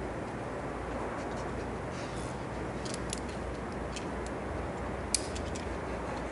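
Steady outdoor background hiss with a few light, sharp clicks of climbing gear on the rope and harness: a couple about three seconds in, and a sharper click about five seconds in followed by a few smaller ticks.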